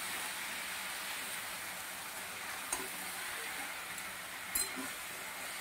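Spinach and chopped vegetables frying in a metal wok (kadai) with no added water: a steady, faint sizzle as a metal spatula stirs and turns the greens, with two light clicks of the spatula against the pan.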